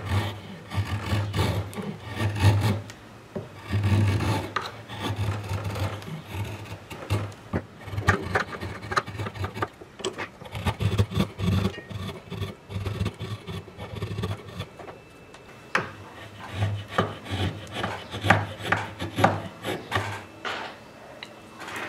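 A 1½-inch Irwin wood chisel is paring shavings off a small wooden lure body clamped in a bench vise. It makes a run of short, irregular scraping strokes with light clicks as it carves the chamfered edges round.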